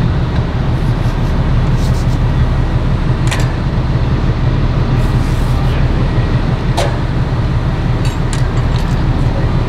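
Fire truck's diesel engine running steadily at the fire scene, a loud, constant low rumble, with a couple of brief sharp clicks over it.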